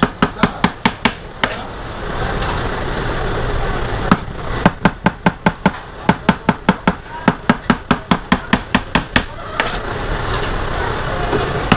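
A large knife chopping bananas into slices on a plastic cutting board: quick, even knocks at about six a second. They come in three runs, broken by short pauses about two seconds in and again shortly before the end.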